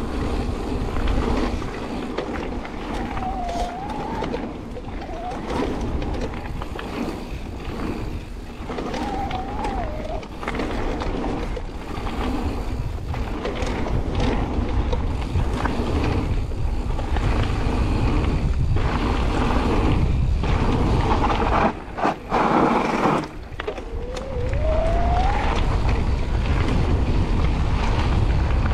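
Riding an electric mountain bike fast down a gravel forest trail: steady wind rumble on the camera microphone, with the tyres crunching and rattling over the gravel. A short whine rises in pitch a few times.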